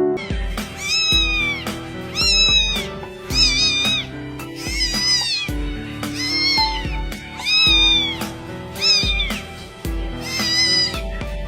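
A cat meowing about ten times, roughly once a second, each meow rising then falling in pitch, over background music with a steady beat.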